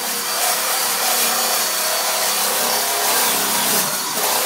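Handheld power drill spinning a sanding disc against rusty sheet-metal in a car's engine bay: a steady, loud abrasive grinding over the drill motor's whine, stripping rust and old paint down for primer.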